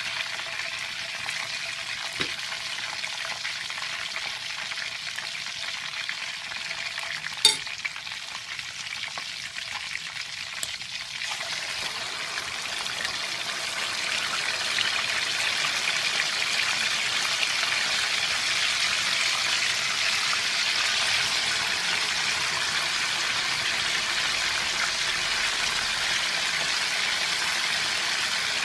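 Chicken pieces sizzling as they fry in hot oil in a pan: a steady crackling hiss that grows louder and fuller about halfway through. A single sharp click cuts through about seven seconds in.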